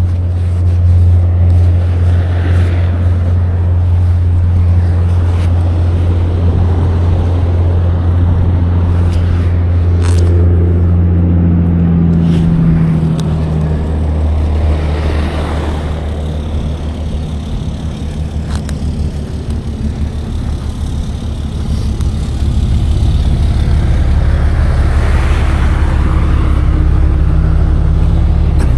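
Tow truck engine running steadily with a low hum. About 13 seconds in its note changes to a rougher pulsing drone, which eases off for a few seconds and then picks up again near the end.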